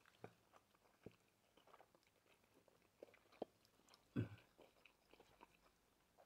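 Near silence with faint eating noises: a handful of soft, short mouth and fork clicks from two people eating spaghetti and meatballs, the most distinct about three and a half and four seconds in.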